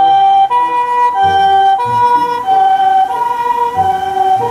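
Japanese ambulance siren sounding its two-tone hi-lo call, switching between a higher and a lower note about every half second as the ambulance drives past.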